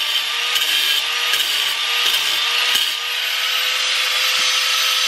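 Angle grinder with a cut-off wheel running at full speed with a steady whine, the wheel grinding into the steel toe of a shoe with a harsh hiss and a few scattered ticks.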